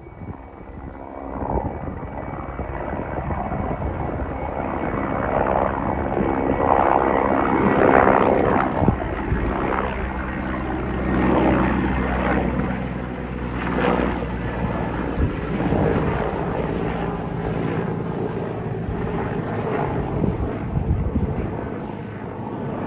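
Mi-8 twin-turboshaft transport helicopter flying in on its landing approach. Its rotor and engine sound swells over the first several seconds as it comes closer, then holds loud and fairly steady.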